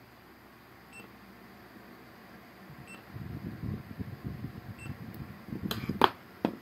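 A portable battery spot welder beeps faintly three times, about two seconds apart, as its pen welds a nickel strip onto lithium cells. Low rustling handling noise follows, then a few sharp knocks near the end, the loudest as the welded cells are lifted off the bench.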